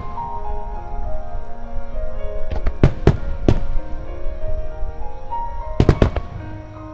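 Aerial firework shells bursting in sharp bangs, a cluster of about five around three seconds in and three more in quick succession near six seconds, over music with held melodic notes.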